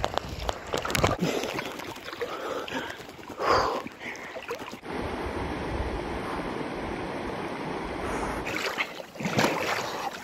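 Splashing in a shallow river as a person wades in, over the steady rush of the flowing water.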